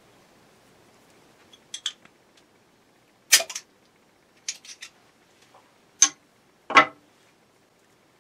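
Metal bottle opener prying the crown cap off a glass bottle of homebrew beer, then the cap and opener being set down on a wooden tabletop. A series of sharp, separate clicks and knocks, the loudest about three seconds in and twice near the end.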